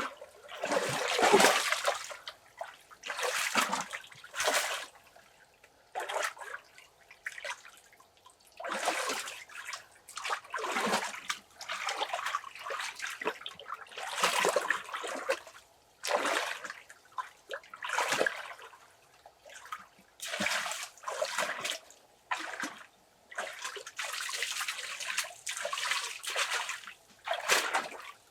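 Water splashing and pouring in repeated short bursts, roughly one every two seconds, with brief quiet gaps between them.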